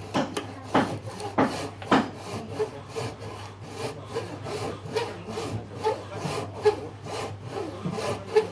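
Hand frame saw (traditional Chinese bow saw) rip-cutting down into the end of a piece of wood clamped upright in a vise, in quick, rhythmic back-and-forth strokes.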